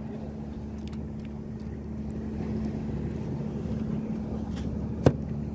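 Steady low drone of a boat engine running out on the water, with one sharp click about five seconds in.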